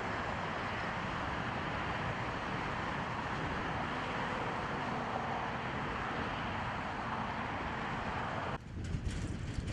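Strong wind rushing in a steady hiss, then about eight and a half seconds in an abrupt change to uneven gusts buffeting the microphone with low rumbles.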